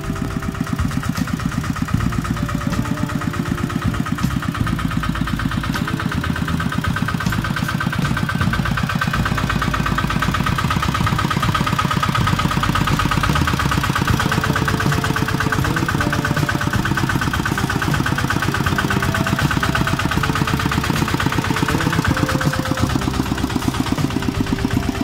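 Single-cylinder diesel engine of a two-wheel walking tractor running steadily, its rapid firing beats even throughout; a higher drone in the engine note swells in the middle and eases off near the end.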